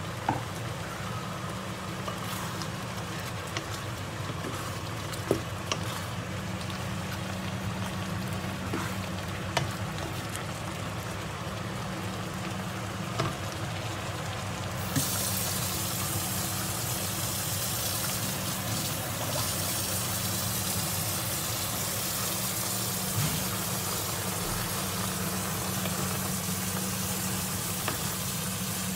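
Tomato and seafood sauce simmering and sizzling in a frying pan, stirred with a wooden spatula that knocks on the pan now and then. About halfway through the sound changes to noodles boiling in a pot of water, also stirred with a wooden spatula. A steady low hum runs underneath throughout.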